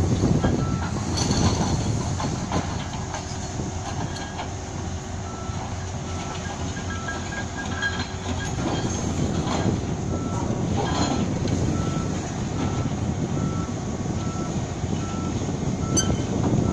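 Heavy machinery's warning beeper sounding steadily, about three beeps every two seconds, over the low rumble of a crawler crane's diesel engine running, with a few short knocks now and then.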